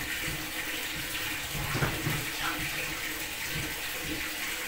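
Water running steadily from a tap, with a few light knocks and handling sounds.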